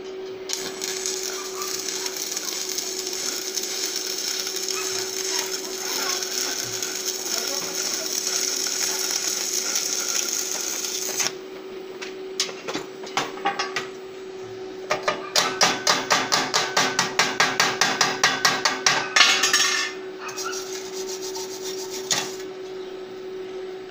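Stick (SMAW) arc welding with a 6013 electrode on 14-gauge square steel tube: the arc crackles and hisses steadily as a weave bead is run along the tube's edge, stopping about eleven seconds in. Later a fast run of sharp, ringing metallic strikes, about four a second for some five seconds: a chipping hammer knocking the slag off the fresh bead.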